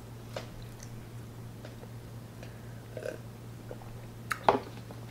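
Quiet swallowing and mouth sounds while drinking from a plastic tumbler, over a steady low hum. A couple of sharp clicks sound about four and a half seconds in.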